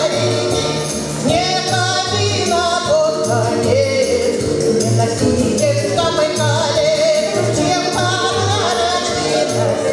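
A woman singing a Russian folk-style song solo into a microphone, her voice sliding and ornamenting the melody, over an instrumental backing track with a steady, regular bass pulse.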